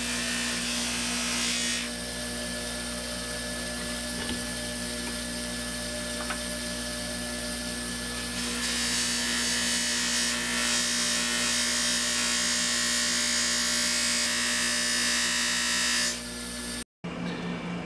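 Bench grinder fitted with a buffing wheel running with a steady hum. The hiss of the spinning wheel rubs first against a bar of polishing compound and then against a steel nut-driver shaft, buffing corrosion off the shaft. The sound cuts off suddenly near the end.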